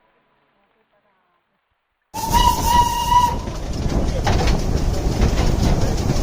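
Silence for about two seconds, then the sound cuts in: the whistle of a Darjeeling Himalayan Railway steam locomotive sounds for about a second over the running noise of the moving narrow-gauge toy train, which then goes on steadily.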